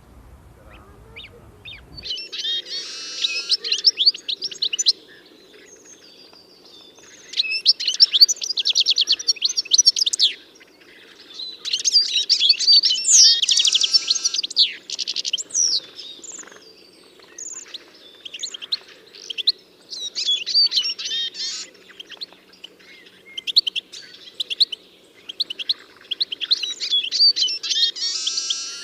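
A songbird singing in long bouts of rapid, high chirping notes, each bout a few seconds long with short pauses between, starting about two seconds in. A faint steady hum lies underneath.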